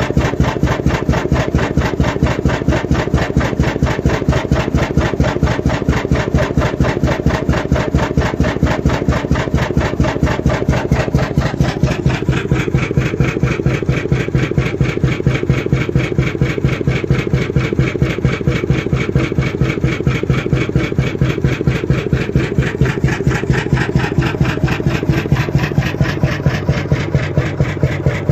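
Krimo single-cylinder 21.9-litre hot-bulb oil engine running steadily at its working speed of around 315 rpm: a fast, even, clattering beat. The tone of the clatter changes about twelve seconds in.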